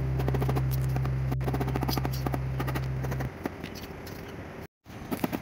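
Rapid small clicks and scrapes of a hand tool working on stone, over a held low note of background music that stops about three seconds in; the sound cuts out completely for a moment near the end.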